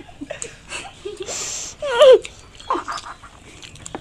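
People eating sweets straight off plates with their mouths, hands behind their backs: irregular slurping, smacking and heavy breathing through the nose, with a short voiced grunt or hum about two seconds in.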